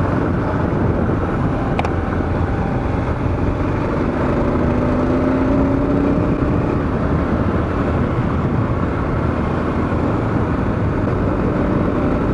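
Dual-sport motorcycle riding along a dirt road: steady wind and engine noise on the rider's camera microphone, with the engine note climbing a little around the middle.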